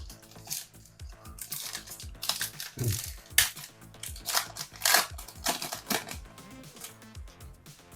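Foil trading-card pack crinkling and being torn open by hand, in irregular rustling strokes loudest in the middle, over light background music.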